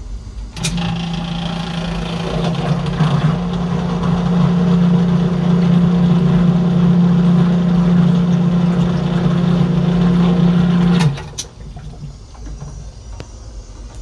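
A Flotec 1/3 horsepower pedestal sump pump motor switches on with a click, runs with a steady hum for about ten seconds while drawing about 300 watts, then shuts off with a click.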